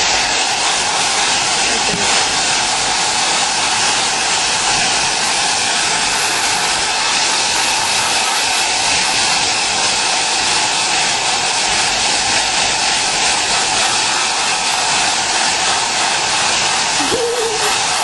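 Hand-held hair dryer blowing steadily on one setting, a loud even whoosh of air with a faint steady motor whine.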